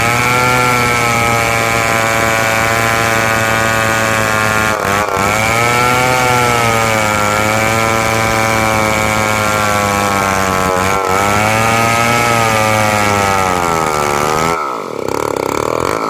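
Chainsaw engine running at high revs while cutting wood, its pitch sagging and recovering a couple of times as the bar loads in the cut. Near the end the throttle is let off and the engine drops, then is revved up and down.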